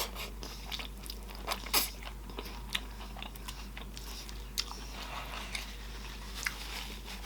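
Close-miked eating: wet chewing and mouth smacking, irregular, with a few sharper smacks.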